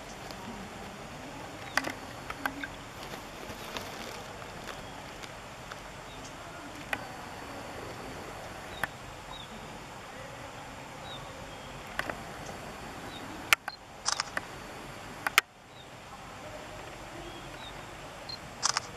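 Outdoor ambience: a steady background hiss, broken by a handful of sharp clicks scattered through it and a few faint short high chirps, with an abrupt brief dip in level about fifteen seconds in.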